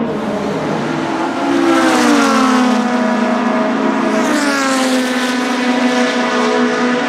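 Cosworth DFV 3.0-litre V8 racing engine of a Ligier JS2 running at speed as the car goes past on track. Its note drops in pitch about one and a half seconds in and again near the middle.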